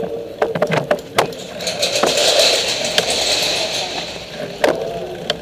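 Bicycles being moved about as a group ride sets off: a run of sharp clicks and knocks, with a steady hiss for about two seconds in the middle.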